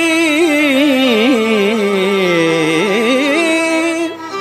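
Tamil devotional song: a wordless held note sung in Carnatic style. The note bends and wavers through ornaments, sinks low about two and a half seconds in, then rises again over a steady drone, and fades near the end.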